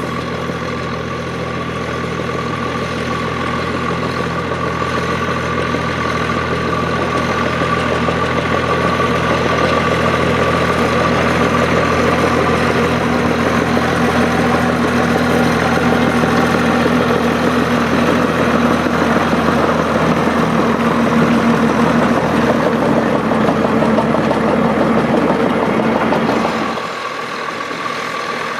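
Volvo BM tractor diesel engine running steadily, growing a little louder toward the middle. About 27 seconds in, the deep part of the engine note drops away suddenly and the sound gets quieter.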